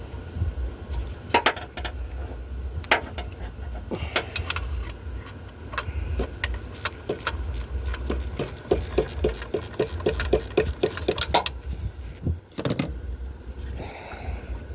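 Ratcheting wrench clicking as a loosened engine mount bolt is backed out, with scattered sharp metal clicks and clinks of the tool on the bolt. About eight seconds in comes a run of quick even ratchet ticks, about four a second, for some three seconds, over a low wind rumble on the microphone.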